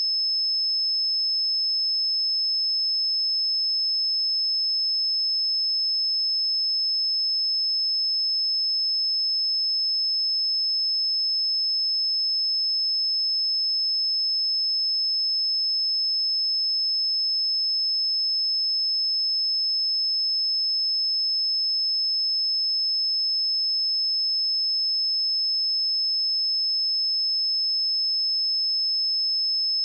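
A pure 5216 Hz sine-wave test tone, one steady high-pitched tone held at constant pitch and level.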